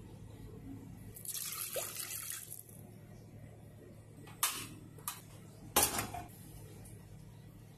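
Broth poured from a ladle into a stainless pot, a splashing pour of about a second and a half. Then three short, sharp metallic clicks and knocks over the next two seconds, the loudest last, as the pot goes onto the gas burner.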